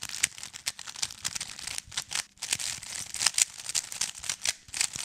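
Limited-edition Gan K'un (a Gan 11 M Pro magnetic 3x3 speedcube) being turned fast by hand: a rapid, irregular clatter of plastic layer clicks. It sounds a bit different from the standard cube, which the owner puts down to the different plastic of its see-through internals.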